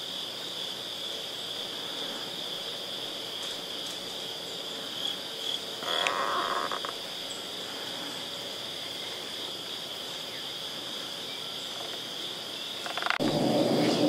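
A steady chorus of insects: a continuous high-pitched drone in two close pitches. A short noise about six seconds in, and near the end a click followed by a louder, lower rushing sound.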